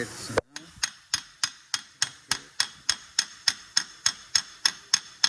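Metal being tapped with a hammer in a steady, even rhythm of about three sharp ringing taps a second.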